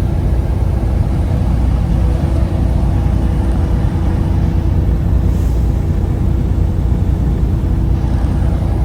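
Steady road and engine rumble inside a vehicle cruising at highway speed, with a faint steady hum.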